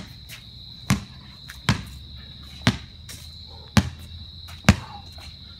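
A basketball dribbled on a concrete driveway, six bounces about a second apart, over the steady high chirring of crickets.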